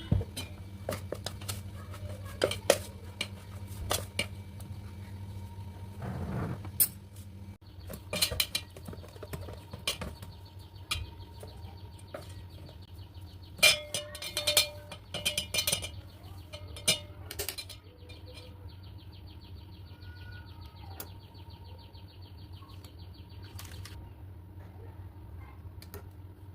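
Kitchen utensils and dishes clinking and clattering in irregular knocks, busiest in the first two-thirds, over a steady low hum.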